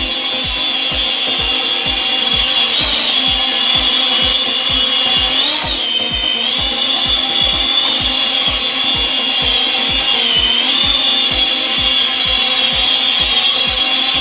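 Mini toy quadcopter drone's small motors and propellers whining in flight, the high whine dipping and recovering in pitch three times as the drone struggles to stay stable. A regular low thump of about three a second runs underneath.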